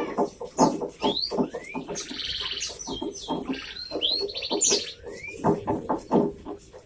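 Domestic canary singing a busy song of rapid trills and quick rising whistled notes, with many short lower notes mixed in.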